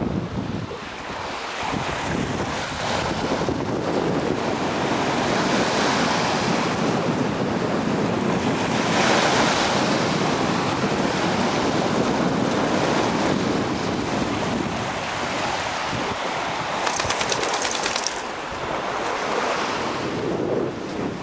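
Lake Michigan waves washing onto the shore, the surf swelling and easing, with wind buffeting the microphone. A short crackle comes near the end.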